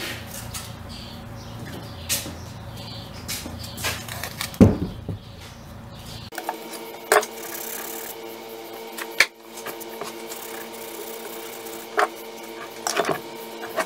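Clicks and knocks of cast-iron lathe parts being handled on a workbench, with one loud knock about four and a half seconds in, over a steady low hum.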